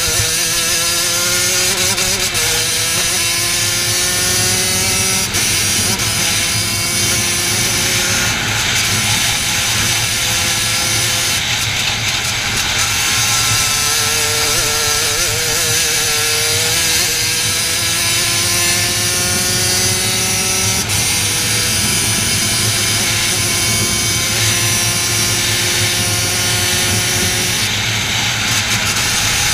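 Racing kart engine heard from the onboard camera at speed around a track. Its pitch climbs through each straight and drops back sharply into the corners, several times over, over a steady rushing noise.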